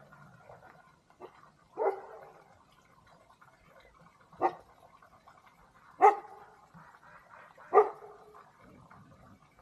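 A dog barking in single, spaced barks: a small yap about a second in, then four loud barks about one and a half to two and a half seconds apart.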